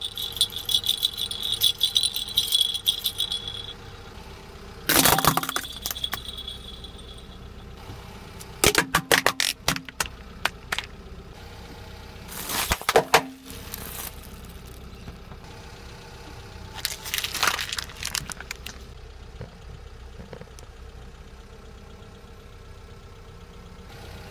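A plastic baby rattle jingling as it is shaken by hand, then several bursts of sharp cracks, crunches and pops as a car tyre rolls over plastic toys and balloons. A car engine idles steadily underneath.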